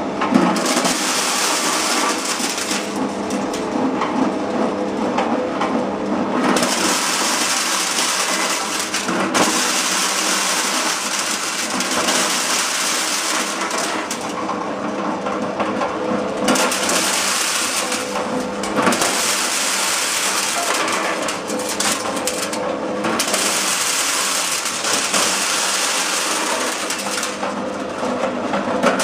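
Small electric corn sheller running, its motor humming steadily under a hard, gritty rattle that stops and starts again several times.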